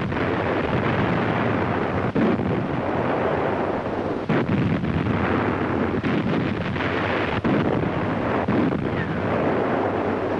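Naval guns firing in a sea battle: several heavy shots, a couple of seconds apart, over a continuous rush of wind and sea noise.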